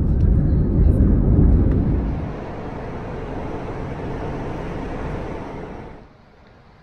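Loud low rumble inside a jet airliner's cabin as it rolls along a wet runway. About two seconds in it gives way to the quieter, steady rushing rumble inside a moving subway car, which drops away near the end.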